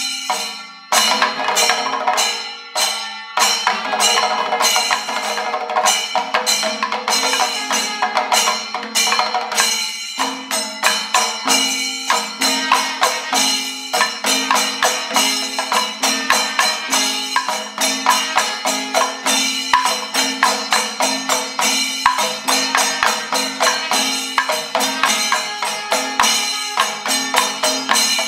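Panchavadyam temple ensemble playing a 28-aksharakalam rhythm: timila hourglass drums, maddalam barrel drum and ilathalam hand cymbals struck together. The strokes grow denser and more even from about ten seconds in.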